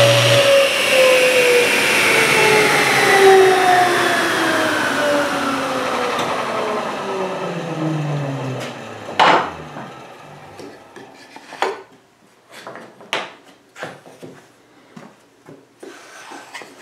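Table saw switched off after a cut: the motor hum stops and the blade coasts down, its whine falling steadily in pitch and fading over about nine seconds. Then a series of short knocks and taps as the wooden pieces are handled on the saw table.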